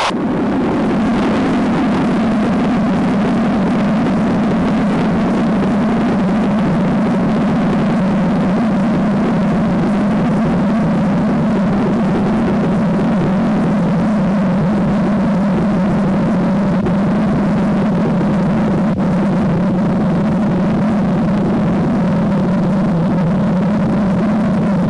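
Rocket engines of the Vostok launch vehicle firing through liftoff and climb: a loud, steady, unbroken roar with a deep rumble underneath.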